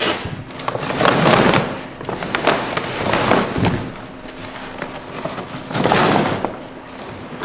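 Peel ply and vacuum-bag film being ripped and pulled off a freshly cured carbon fiber and epoxy lamination: crackling, tearing and crinkling in several pulls, loudest about a second in and again about six seconds in.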